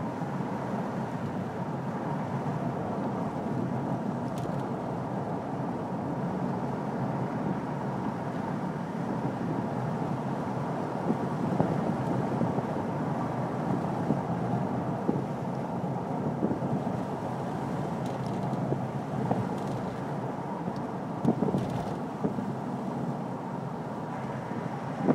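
Steady road and engine noise of a car driving, heard from inside the cabin, with a few light knocks now and then.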